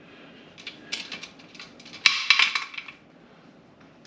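Wing-nut clamps on an All-American cast-aluminium pressure canner being loosened and swung down to free the lid. Metal clinks and rattles come scattered at first, then a loud cluster from about two to three seconds in.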